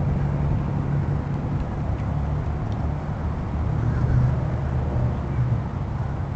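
A car engine idling steadily, a low hum heard from inside the parked car.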